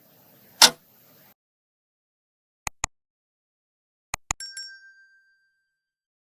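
Subscribe-button sound effects: a sharp click, then a quick double click, then another double click followed by a short bright bell ding that rings out briefly.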